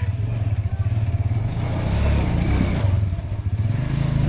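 A small engine running steadily with a low, pulsing drone.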